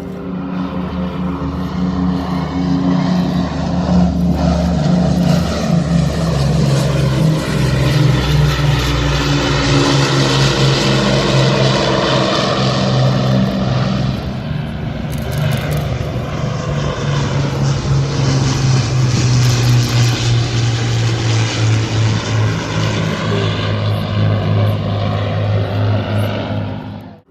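A World War II piston-engined propeller aircraft running loud and steady as it flies past, its engine note dropping slightly after the middle.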